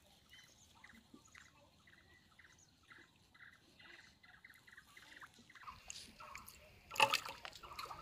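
A hooked fish splashing and thrashing in shallow water, with a loud splash about seven seconds in. Before it, a bird calls over and over in short notes, about two or three a second.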